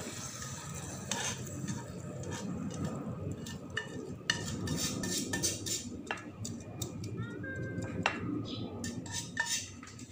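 A metal spoon clinking and scraping against a ceramic serving dish while sauce is spooned over sliced beef, in irregular clicks and knocks over a steady low hum.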